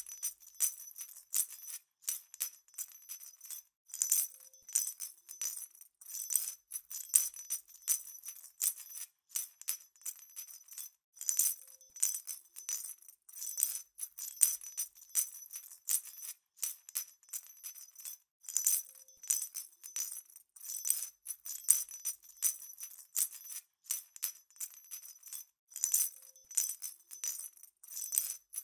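Small jingle bells shaken in quick, irregular bursts, bright and high with no low tones, like the bell on a cat toy.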